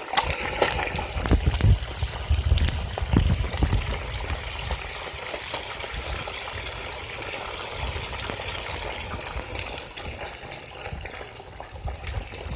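Hot oil in a propane turkey-fryer pot bubbling and sizzling hard around a whole turkey that has just gone in, with low rumbles in the first few seconds.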